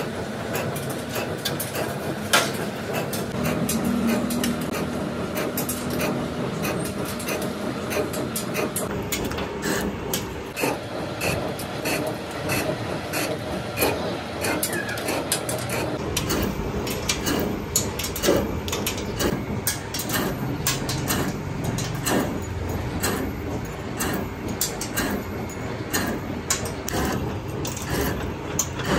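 Metalworking shop noise: machinery running steadily under frequent sharp metallic clicks and knocks.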